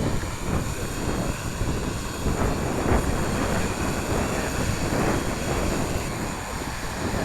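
Gusting wind buffeting the microphone, rising and falling irregularly, over a faint steady high whine from the Align M690L hexacopter's motors and propellers.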